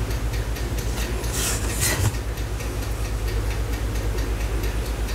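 A steady low pulsing hum at about eight beats a second, from an unseen kitchen appliance. About one and a half seconds in comes a brief rustle of dry pound-cake crumbs being crumbled by hand onto a trifle.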